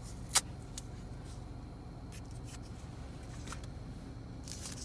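Steady low hum of a car cabin with the engine running, with one sharp click about half a second in and a few faint ticks. Near the end, the crinkle of a paper wristband being handled as it is worked off a wrist.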